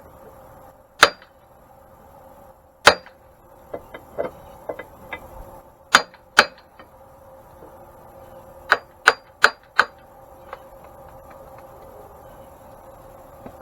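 Sharp metal-on-metal clanks as a shaft is knocked against a bronze oil-impregnated bushing to drive it deeper into its seat. There are single hard knocks about 1 and 3 seconds in, lighter taps after that, two knocks around 6 seconds, and a quick run of four around 9 seconds.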